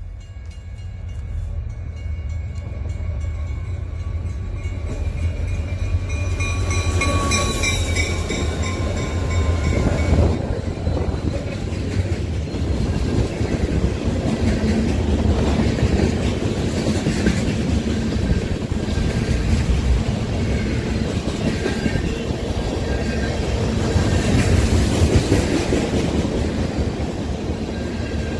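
Diesel freight train passing close by. Its rumble builds as the locomotive approaches and goes past over the first ten seconds or so, then turns into a steady clatter of wheels as covered hoppers and tank cars roll by.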